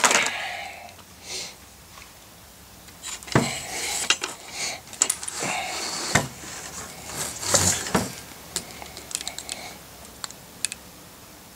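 Handling noise from hands working on a rifle scope and the mount of a scope light and laser kit: irregular small metallic clicks and light knocks with some rustling, thinning out near the end.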